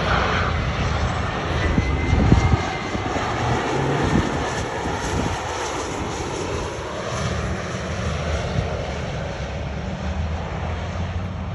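Private jet's engines running, a continuous loud rushing noise with a deep rumble and a faint high whine in the first few seconds.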